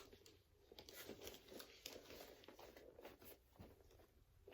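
Near silence, with faint scattered clicks and soft rustles of the cardboard box and packaging being handled.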